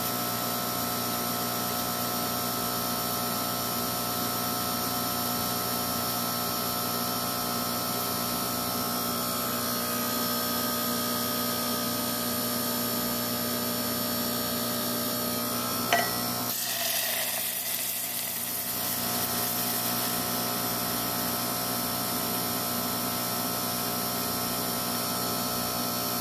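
Steady electrical buzz of a Frantz magnetic separator running, a constant whine made of several fixed tones. A single sharp click comes about two-thirds of the way through, followed by a brief rush of noise.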